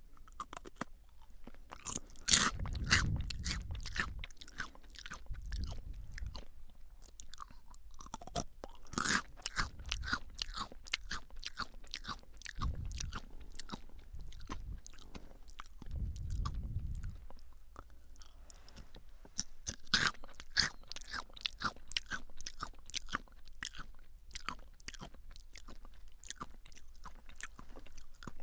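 Jagabee lightly salted potato sticks being bitten and chewed close to the microphone: crisp, dense crunching that comes in several louder bursts, with dull low thuds of the jaw under the crunches.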